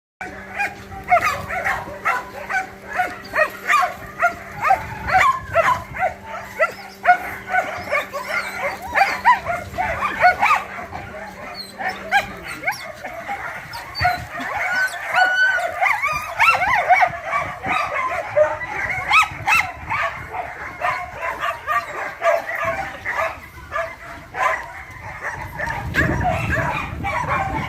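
Several dogs barking, yelping and whining at once, their calls overlapping densely, over a steady low hum that cuts off about twelve seconds in.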